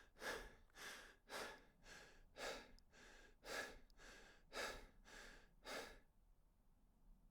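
A person breathing in and out rhythmically and hard, about one full breath a second, stopping about six seconds in.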